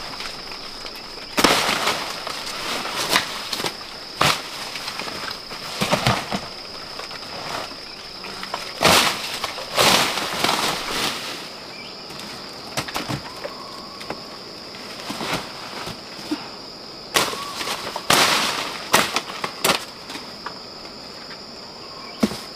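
A steady high-pitched insect drone, with irregular rustles and knocks over it, about a dozen, some sharp and some drawn out.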